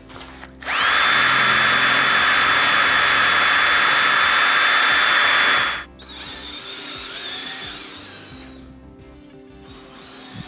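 Power drill running steadily for about five seconds with a high whine, spinning up quickly at the start and then stopping. It is likely drilling or driving fasteners to attach trim.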